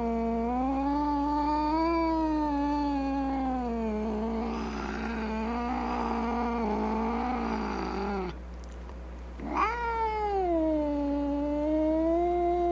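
Cat yowling: a long, drawn-out wavering yowl that turns rough and raspy in the middle and breaks off about eight seconds in. After a short pause a second yowl swoops up sharply and is held. A steady low hum runs underneath.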